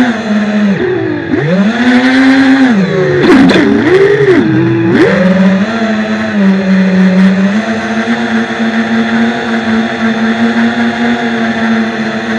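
Electric motors and propellers of an FPV drone whining, heard from its onboard camera. The pitch swoops down and back up several times in the first five seconds as the throttle is cut and opened again coming out of the dive, then holds steady while it cruises low and level.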